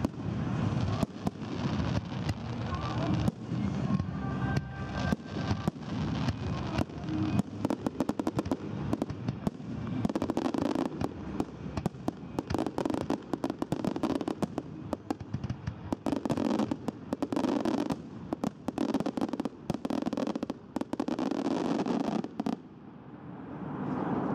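Aerial fireworks display: a dense run of shell bursts, many sharp bangs in quick succession, easing briefly near the end.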